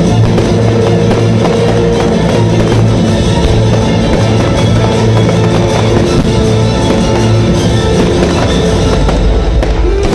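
Loud music with sustained held chords.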